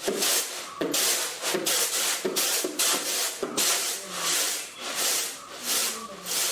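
Rice grains swishing and rattling in woven winnowing trays as they are tossed and shaken, about two strokes a second, winnowing out husk, dust and small stones from freshly milled red kaje rice.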